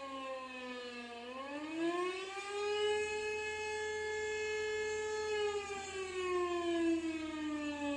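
Austrian civil defense siren wailing. Its pitch slides down, rises between about one and three seconds in, holds steady for a few seconds, then falls slowly again near the end.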